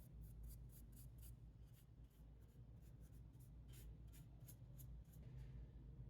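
Faint, quick scratchy strokes of hand work rubbing over a wooden piece, several a second, thinning out near the end, over a low steady hum.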